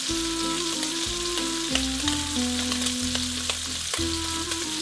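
Pancetta and garlic sizzling in a frying pan: a steady hiss flecked with small crackles, under soft background music of held chords and a low bass line.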